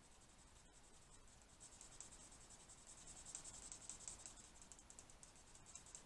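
Faint, quick scratchy strokes of an alcohol marker's felt tip rubbing back and forth on sketchbook paper while blending colour, a little louder from about a second and a half in.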